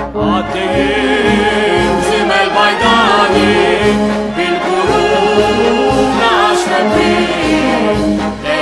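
A Maltese hymn-march: voices singing with vibrato over a wind band accompaniment.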